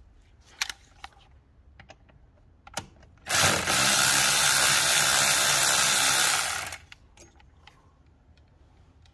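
Cordless power driver with an 8mm socket spinning steadily for about three and a half seconds, then stopping abruptly, loosening a fastener on the engine's intake tube. A few light clicks of the socket being fitted come before it.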